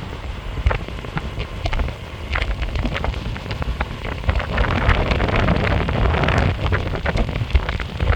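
Wind buffeting the microphone over the rolling rumble of a Meepo Hurricane electric skateboard's honeycomb wheels on pavement while riding. Many short sharp clicks are scattered through it.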